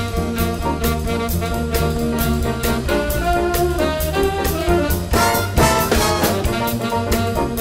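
Jazz band instrumental break: a brass section playing over walking bass and a steady drum beat.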